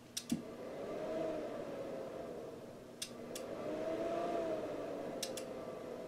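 Stock cooling fan of an Icom IC-7300 transceiver running: a steady whir with a whine that drifts slowly up and down in pitch. Pairs of sharp clicks come every two to three seconds.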